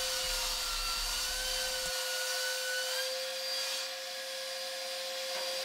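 Workshop machinery running steadily, most likely the dust extractor beside the table saw: an even whir with a constant hum tone and no cutting strokes.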